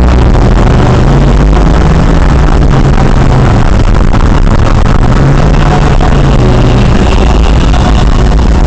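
A moving car's engine and road rumble heard inside the cabin through a dashcam's microphone, steady and very loud, its low drone shifting in pitch now and then as the car drives on.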